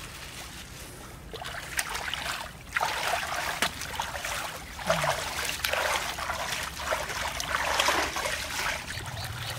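Hands splashing and swishing through shallow muddy water, in irregular washes that start about a second and a half in and grow louder a little later.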